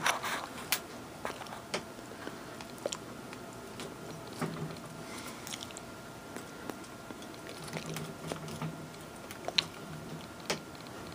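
Irregular sharp clicks and taps with some light scraping, from a small hand tool being worked along the glass edge of a window sash. The sharpest click comes near the end.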